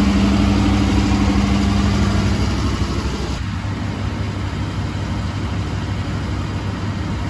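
Ambulance engine idling steadily, with a steady hum over it that drops away about three seconds in.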